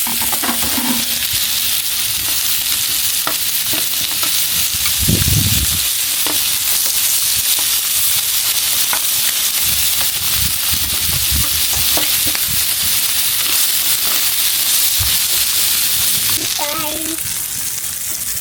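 Chicken sizzling on an indoor barbecue grill: a steady hiss of fat and juices frying, with a few light clicks and a low thud about five seconds in. The sizzle eases near the end.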